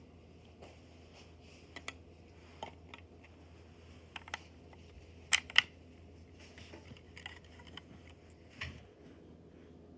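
Plastic Lego bricks of a brick-built pistol clicking and knocking as it is handled, with a few scattered ticks and two sharp clicks in quick succession about halfway through.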